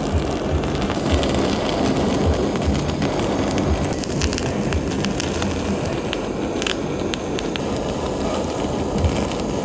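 Kitchen blowtorch flame running with a steady hiss as it sears raw wagyu beef on temari sushi, with a few faint ticks partway through.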